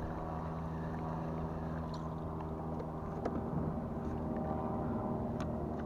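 Minn Kota electric trolling motor running on a jon boat, a steady electric hum that changes about three seconds in, its lower tones dropping out and higher ones carrying on.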